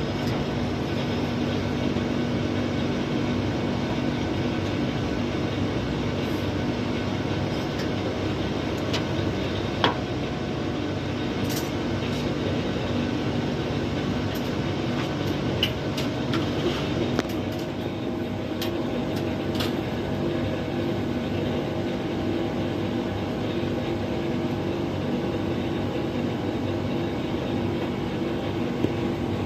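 Air conditioner condensing unit (compressor and condenser fan) running with a steady hum, with a few light clicks over it.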